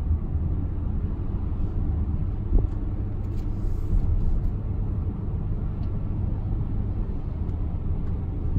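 Steady low road and engine rumble inside a moving car's cabin, with a brief thump about two and a half seconds in.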